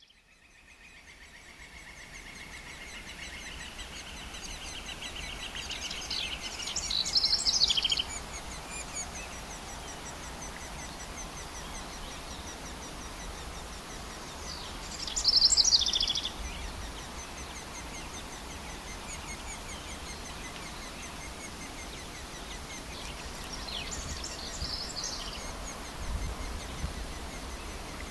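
Birds singing over a steady outdoor ambience that fades in at the start, with bursts of high, rapid trilling calls about a quarter of the way in and again at the middle, and fainter ones near the end.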